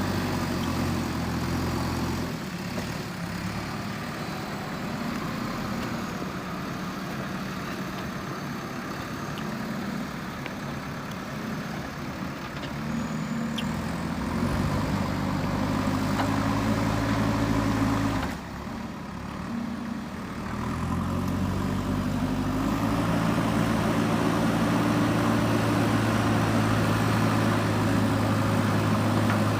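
JCB 3DX backhoe loader's diesel engine running, with its revs changing under work. The engine speed rises about halfway through, dips sharply for a moment soon after, then climbs again and holds steady at higher revs for the last third.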